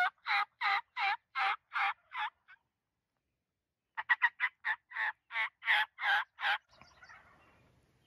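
Hen turkey yelps made on a turkey call to draw in gobblers: a run of evenly spaced yelps, a pause of about a second and a half, then a second run that opens with a few quick notes and settles back into yelps.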